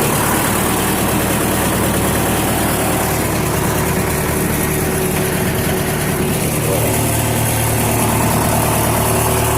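Five-ton backhoe's diesel engine idling steadily, left running for a minute shortly after starting; its tone shifts slightly about seven seconds in.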